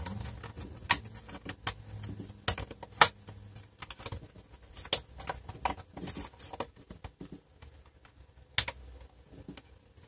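Hand screwdriver turning a long screw into a laptop's plastic bottom case: irregular light clicks and ticks from the tip on the screw head and the screw in the plastic, with a few sharper clicks.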